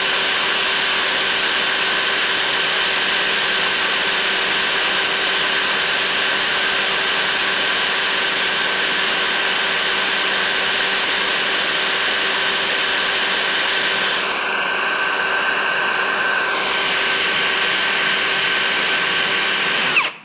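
Cordless drill running at a steady speed with a constant whine, boring a small safety-wire hole through a steel bolt under light pressure; the motor stops right at the end.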